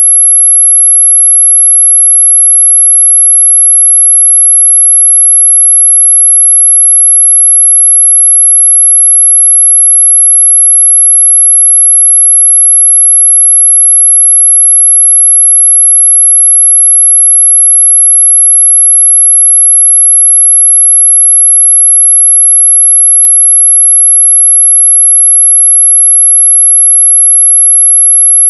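A single steady, very high-pitched pure tone of the kind sold as a mosquito-repelling 'ultrasonic' sound, loud and unchanging. A faint click comes about three-quarters of the way through.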